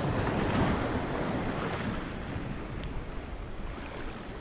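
Small ocean waves surging and washing over shoreline rocks, with wind buffeting the microphone. The surge is loudest at the start and eases off.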